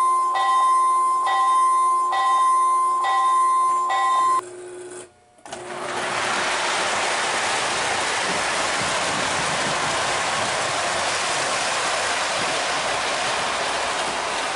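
The Williams FM Trainmaster's True Blast II electronic locomotive bell ringing, about one and a half strokes a second, until it stops about four and a half seconds in. After a short drop-out, the O gauge train runs with a steady rolling rumble of wheels on track as freight cars pass close by.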